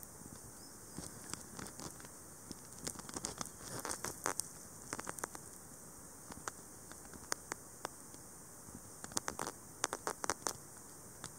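Irregular small clicks and taps, bunched in two clusters, over a steady hiss.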